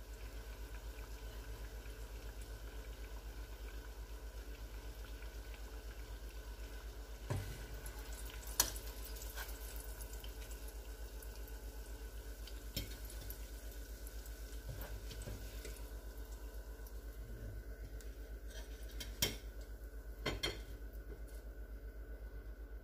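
A handful of light metal clinks and taps, the loudest about a third of the way in, as a wire spider skimmer knocks against a saucepan and plates while fried turnovers are lifted out of the oil. Under them runs a steady low hum.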